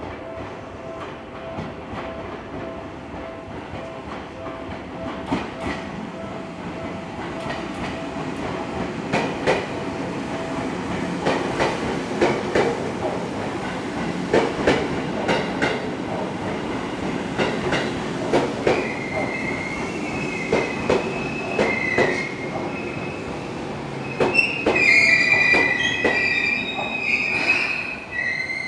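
Seibu 2000-series electric commuter train pulling into the platform: the running noise builds and its wheels click over the rail joints. From about two-thirds of the way through, a high squeal sets in as it brakes.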